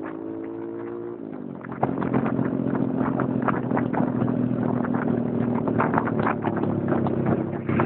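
Motorcycle engine running on the road: its note climbs, drops about a second in, then runs louder and steadier from about two seconds in, with irregular clicks and rattles over it.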